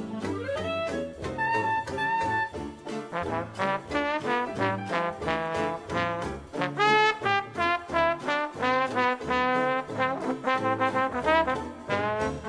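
Upbeat jazz background music with brass instruments carrying a lively melody over a steady beat.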